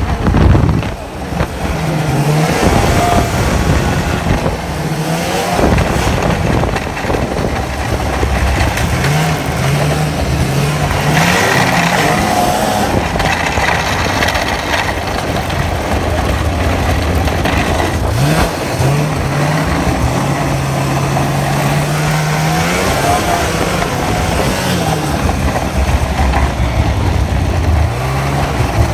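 Snowmobile engine running at speed, heard close up from aboard the sled, its pitch rising and falling several times as the throttle is worked, over a steady rushing noise.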